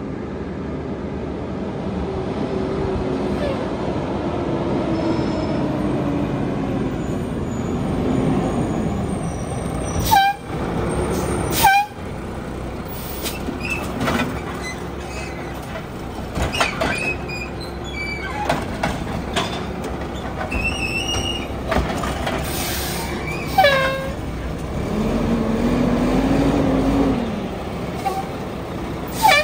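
Mack LE garbage truck with a Heil Multipack side-loader body pulling up to the curb: diesel engine running, with short brake squeaks and sharp air-brake hisses about ten and twelve seconds in and again at the very end. The engine revs up briefly a few seconds before the end.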